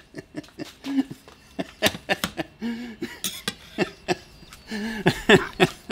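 A man coughing and chuckling in short bursts, with brief low voiced sounds between sharp breathy stripes.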